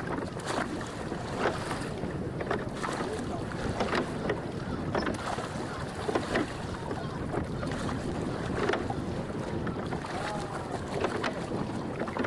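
Water washing and splashing along the hull of a small open boat under way, with wind on the microphone and scattered sharp knocks and splashes.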